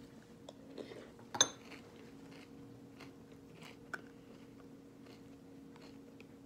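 Light clicks and clinks of a makeup brush and a small gold compact being picked up and handled, with one sharp clack about a second and a half in and a smaller tap near four seconds. A faint steady hum runs underneath.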